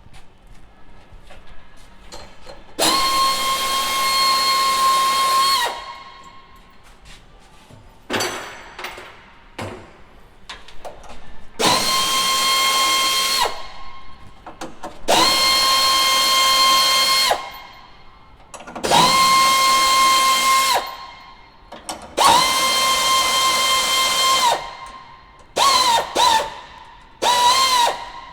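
Electric drill-driver running in repeated bursts of two to three seconds, each a steady whine that starts and stops cleanly, about six times, then a few short blips near the end: backing out the fasteners of the power unit's rear connection wires.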